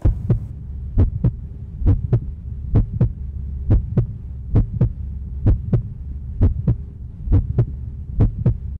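Heartbeat sound effect: a steady lub-dub, two quick thumps per beat at about 65 beats a minute, over a continuous low hum.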